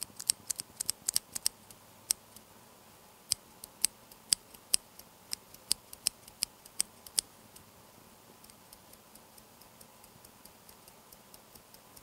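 Cherry MX Clear tactile key switch with a keycap, pressed and released again and again by a finger, giving sharp plastic clacks with no click mechanism. It is a quiet, non-clicking switch. The strokes come at an uneven pace at first, then turn softer and more regular, about three a second, near the end.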